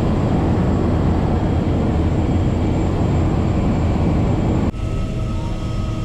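Single-engine floatplane's engine and propeller heard from inside the cockpit, a loud steady drone. About four and a half seconds in the sound changes abruptly to a slightly quieter drone with a few steady whining tones.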